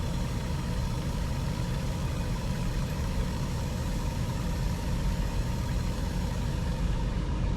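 A motor running steadily with a heavy low rumble and a faint steady whine.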